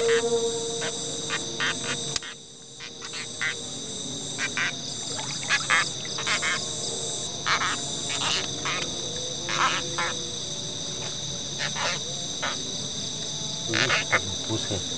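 Night chorus of insects, crickets among them, making a steady high-pitched buzz, with frogs giving short calls every second or so. The sound briefly drops out about two seconds in.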